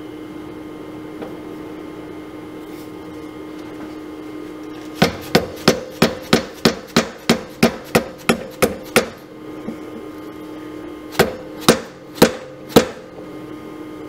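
A hammer tapping leaf spring bushings into place on a golf cart's rear leaf spring: a quick run of about a dozen sharp metallic strikes, about three a second, then after a pause four more, over a steady faint hum.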